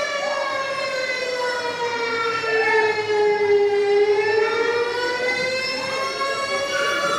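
Siren wailing: its pitch sinks slowly to its lowest about halfway through, then rises again. It sounds the alarm for an emergency mock drill.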